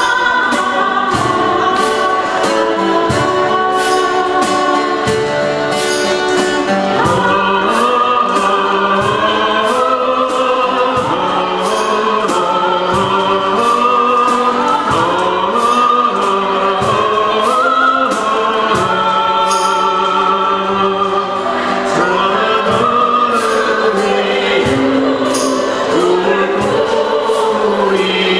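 Live acoustic performance: a woman and a man singing a slow ballad duet over two strummed steel-string acoustic guitars, with a steady cajon beat underneath.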